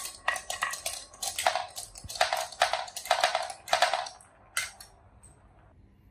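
Glass marbles rolling down a wooden marble run, clacking against each other and against the wooden track and its stick baffles in a rapid rattle. The rattle stops about four seconds in, with one last click about half a second later.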